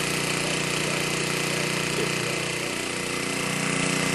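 Pennsylvania Railroad steam locomotive standing and simmering: a steady hiss of steam with a low, even hum underneath.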